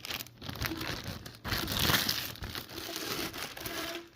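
Packaging crinkling and rustling as fan parts are handled and unwrapped, loudest about halfway through.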